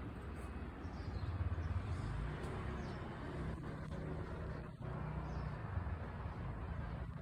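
A low, steady hum with a faint rumble beneath it, swelling and easing slightly over a few seconds.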